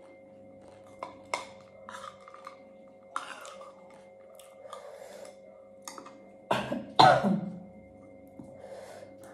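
A woman eating from a plastic bowl: a few light clicks of a spoon against the bowl, then two loud coughs about six and a half seconds in.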